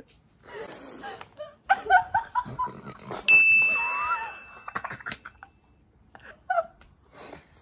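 People laughing, broken by a bright single-tone ding sound effect about three seconds in that rings and fades over a second or so, marking a point scored.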